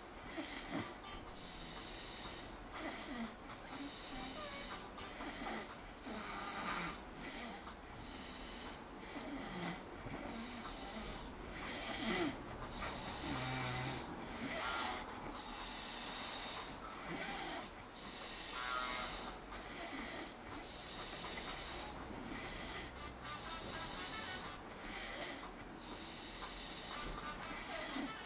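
A man snoring deeply in his sleep, with a breath about every two seconds: a breathy rush of air alternating with a rasping snore.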